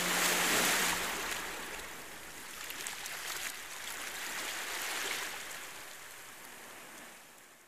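Rushing water noise, like surf or a stream, swelling and ebbing a few times before fading out near the end. The last low note of the string band music dies away in the first second.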